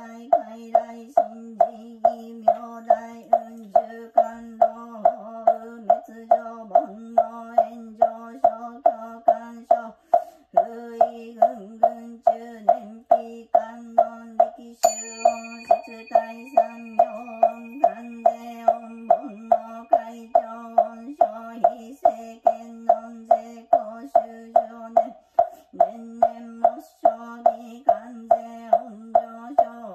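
Buddhist sutra chanted in a steady monotone, kept in time by a mokugyo (wooden fish drum) knocked about twice a second. About halfway through, a rin bowl bell is struck once and rings on for several seconds.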